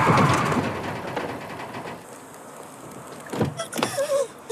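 Car tyres skidding to a halt, the screech fading away over the first two seconds. Near the end come a sharp knock and short, wavering gasps.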